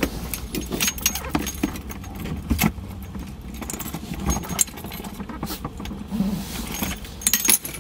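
Light metallic clinks, rattles and a few knocks as a wheeled metal mobility frame is shifted about in the open cargo area of a car.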